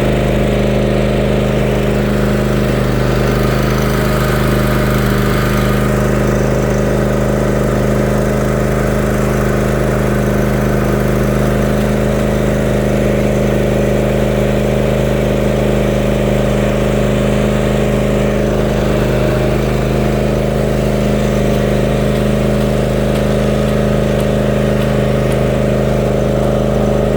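Riding lawn mower's gasoline engine running steadily at an even speed.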